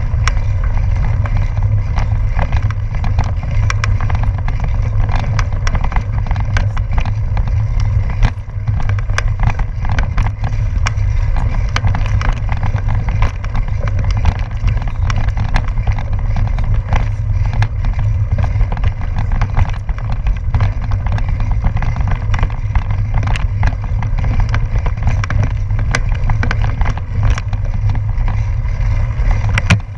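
Gravel bicycle rolling over a rocky dirt road: a steady low rumble of wind and road vibration on the microphone, with frequent small clicks and rattles as the tyres run over loose stones.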